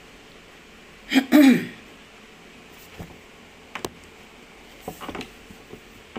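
A woman clearing her throat once, about a second in, followed by a few faint clicks and taps.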